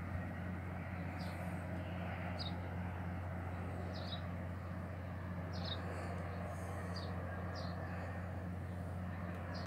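A small bird chirping briefly and high, about once every second or so, over a steady low hum.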